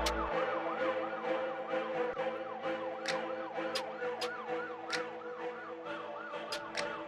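Siren-style yelp rising and falling about three times a second, over steady held tones and sharp regular ticks.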